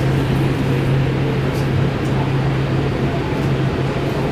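Steady noise inside a Kinkisharyo P3010 light-rail car, with a constant low hum underneath.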